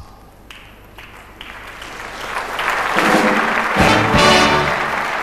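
Audience applause building up after a punchline, with a brass band joining in with a short fanfare about three seconds in.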